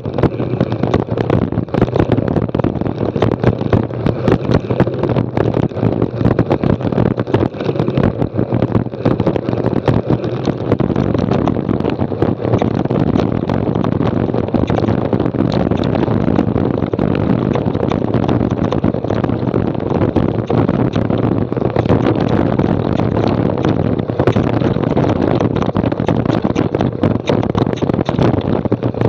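Mountain bike rattling fast down a rough, rocky gravel track: tyres crunching over loose stones and the bike and camera mount clattering with constant small knocks over a steady rumble.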